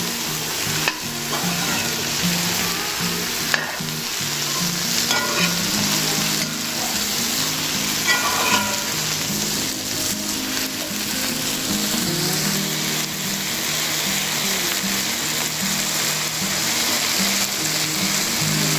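Okra, potatoes and saltfish sizzling as they fry in a pot while being stirred, with a few sharp knocks in the first several seconds.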